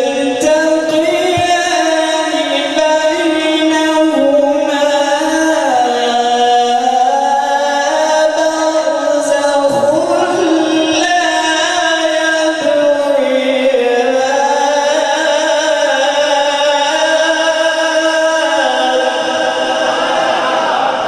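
A man's voice in melodic Quran recitation, drawing out long ornamented notes that slide slowly up and down in pitch, with a few short pauses between phrases.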